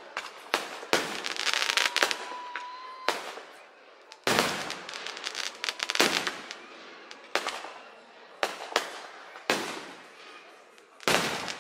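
Fireworks display: aerial shells bursting in an irregular string of sharp bangs, with glittering crackle from the burning stars between them.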